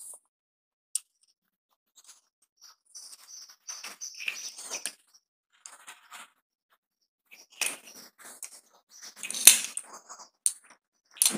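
Small screwdriver working the screw terminals of plastic two-way switches: scratchy scraping and light clicks as the terminal screws are turned down on the wire ends, with a sharper click or tap near the end.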